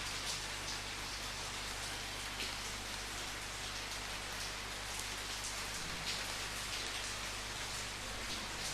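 Steady rainfall, an even hiss with individual drops standing out now and then, over a low steady hum.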